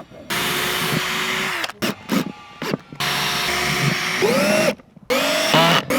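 Power drill driving screws in three runs; the motor's pitch rises as each of the later runs starts, with a few short knocks between runs.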